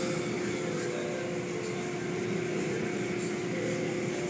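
Automatic tunnel car wash heard from inside the car: water spray and cloth wash curtains and brushes slapping and sloshing across the windshield, over a steady hum.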